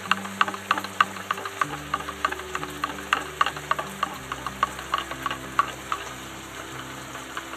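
Pork loin chops and chicken stock sizzling in a hot frying pan, with many short crackling pops, several a second.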